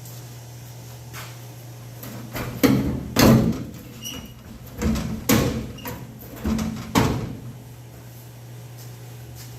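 About six metal clunks and knocks on an old Frigidaire refrigerator's sheet-metal door and cabinet, over a steady low hum.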